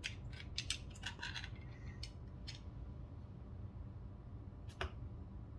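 Small sharp clicks and taps, a quick run of about ten in the first two and a half seconds and a single one near the end: small knife parts and an orange plastic handle scale being handled and set down on a desk mat during disassembly of a folding knife.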